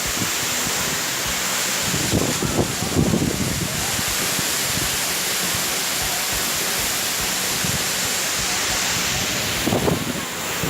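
Waterfall falling close by: a steady, even rushing hiss, with faint voices briefly under it.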